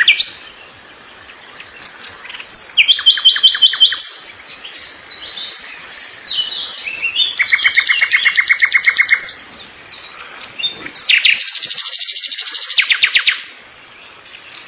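Songbird singing: phrases of fast trills, each a rapid run of repeated high notes lasting one to two seconds, with shorter varied chirps and whistles between them.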